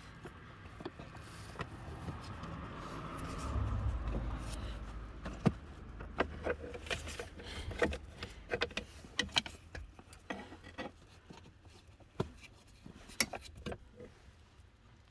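Plastic cabin-filter housing cover being handled and pushed into place: rubbing and scraping at first, then a string of sharp plastic clicks and knocks from about five seconds in as it is seated.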